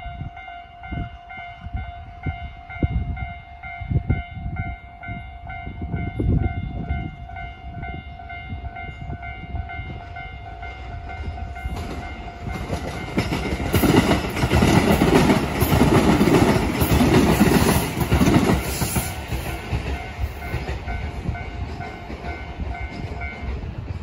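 Japanese level-crossing alarm ringing steadily while a Tobu line train rolls over the crossing, its wheels and running noise building about halfway through and loudest for several seconds. The alarm stops just before the end as the barriers begin to rise.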